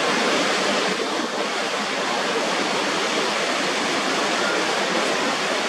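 Niagara Falls: a great volume of water pouring over the brink, a steady, even rush that doesn't change.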